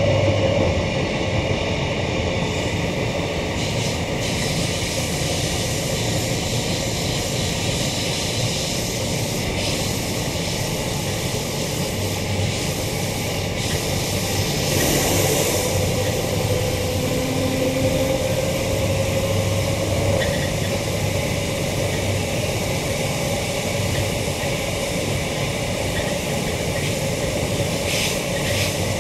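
Queensland Rail EMU electric multiple unit running along the line, heard from inside the passenger car: the steady rumble and rush of wheels on the track, with a faint whine that rises slightly about halfway through.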